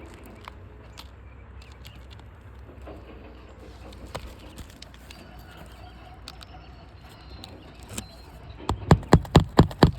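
Light taps and scrapes, then near the end a fast run of sharp hammer blows, about five a second, during shingle replacement work.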